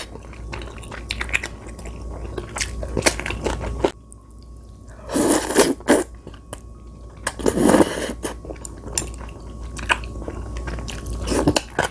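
Close-miked chewing and slurping of black-bean-sauce instant noodles, with light clicks of chopsticks on the plate; two longer, louder slurps come about five and eight seconds in.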